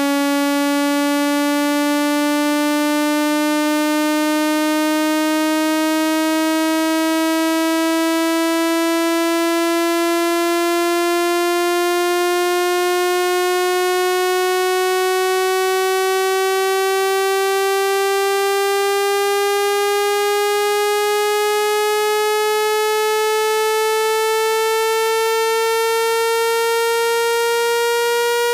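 Electronic speaker-cleaner tone for ejecting water and dust from a phone speaker: a single buzzy synthesized tone at steady loudness, sliding slowly and evenly upward in pitch.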